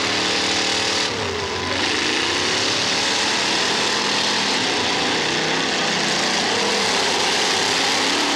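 Several race-car engines running at once under race load, their pitches rising and falling against one another.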